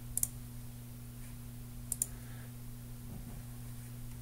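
Two computer mouse clicks, one just after the start and one about two seconds in, each a quick press-and-release pair, over a steady low hum.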